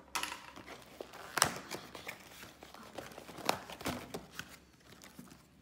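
Cardboard KFC meal box being handled and opened by hand: paper-and-cardboard rustling and crinkling with sharp crackles, loudest about a second and a half in and again about three and a half seconds in.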